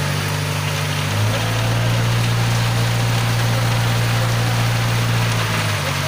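Diesel engine of a self-loading concrete mixer running steadily as the drum discharges, its note changing about a second in and again near the end, over a gritty hiss of wet concrete sliding down the chute onto a plastic sheet.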